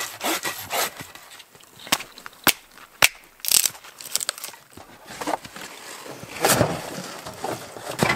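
A few last strokes of a hand saw cutting through a birch log. These are followed by three sharp wooden knocks about half a second apart and, a few seconds later, a rustling scrape.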